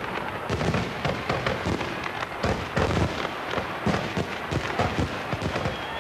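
Large aerial fireworks display: shells bursting in quick, irregular succession, about two or three bangs a second.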